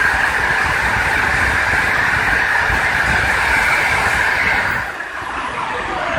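Electric drill spinning a small abrasive disc against the copper base of a CPU block, a steady grinding whine as the copper is lapped. About five seconds in, the drill is let off and winds down with a falling pitch.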